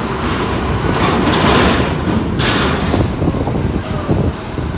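Intercity bus's diesel engine running as the bus moves past, with a short rush of hissing noise about two seconds in.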